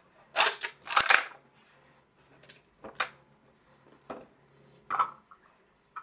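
Blue PETG prints popping free of a flexed CryoGrip flexible build plate: sharp cracks, the two loudest in the first second or so, then fainter clicks about once a second. The prints release cleanly from the plate without glue.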